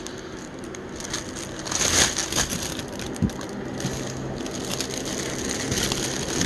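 Clear plastic packaging crinkling and rustling as it is handled, loudest about two seconds in, with one sharp tap a little after three seconds.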